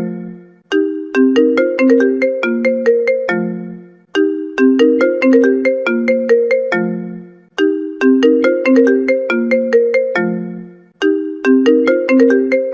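iPhone ringtone playing: a short melody of quick, fast-fading notes that ends on a lower held note, looping about every three and a half seconds.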